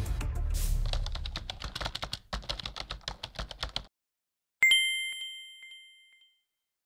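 Rapid keyboard-typing clicks, a title sound effect, run for about four seconds as low music fades under them. After a short gap a single bright chime dings once and rings out for about a second and a half.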